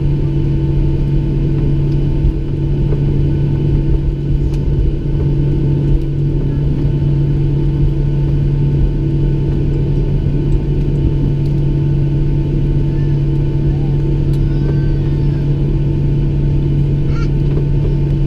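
Boeing 737-700's CFM56-7B jet engines at taxi idle, heard from inside the cabin: a steady low drone with a constant hum and rumble as the airliner rolls along the taxiway.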